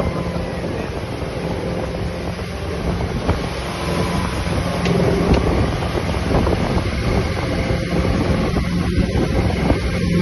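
Parasail tow boat's engine running steadily under way, a constant low hum, with wind buffeting the microphone.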